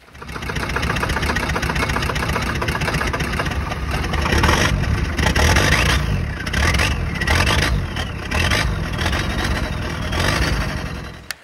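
Old vehicle's engine running, revved up and down several times while its exhaust blows black smoke; the sound cuts off abruptly near the end.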